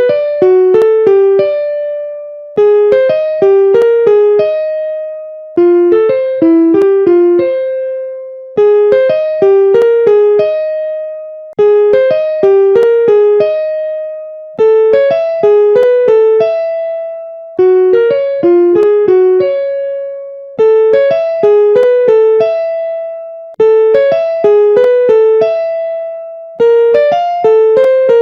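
Piano playing a short jingle: a quick run of about six notes ending on a longer held note, repeated about every three seconds.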